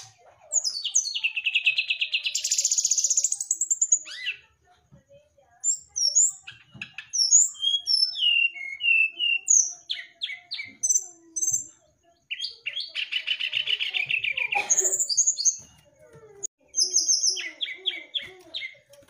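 Brown-chested jungle flycatcher (sikatan rimba dada coklat) singing a varied song of short, quick whistled notes, broken by two long, fast trills that climb in pitch: one in the first few seconds and another past the middle.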